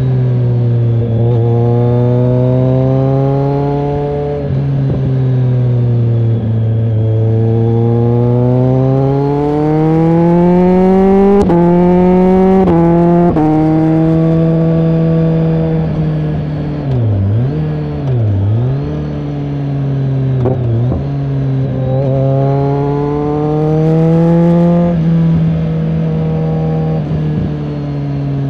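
BMW K1300R's inline-four engine breathing through an AC Schnitzer aftermarket exhaust while riding, its pitch rising and falling with the throttle. The revs climb in a long pull about ten seconds in and step down at gear changes. They dip sharply twice a few seconds later, then climb and fall again near the end.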